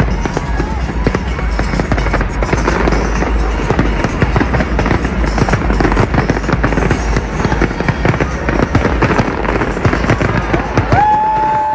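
Fireworks display: rapid, continuous bangs and crackling with music underneath.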